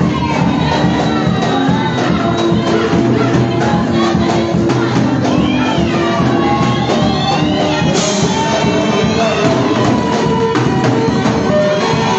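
Gospel praise song: a woman singing into a microphone, amplified through the PA, over electronic keyboard accompaniment with a steady beat.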